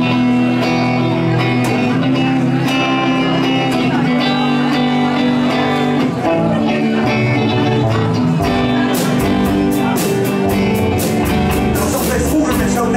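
Live rock band playing a song intro: sustained guitar and keyboard chords, with the drums coming in about nine seconds in.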